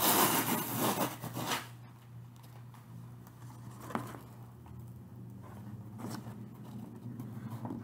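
Cardboard shipping box being opened by hand: a loud tearing rustle of tape and cardboard for the first couple of seconds, then quieter scraping of the flaps being folded back, with one sharp knock about four seconds in. A faint steady hum lies underneath.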